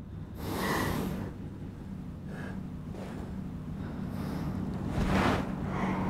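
A woman's tearful breathing: a few soft, breathy gasps and sobbing breaths, about half a second in, once in the middle and again near the end, over a faint low steady hum.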